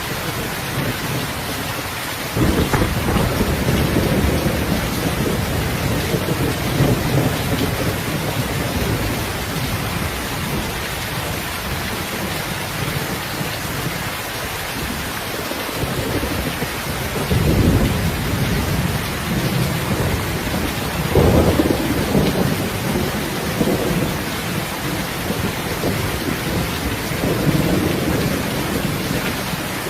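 Steady heavy rain hiss with rolling thunder. Low rumbles swell in a few seconds in and again several times in the second half.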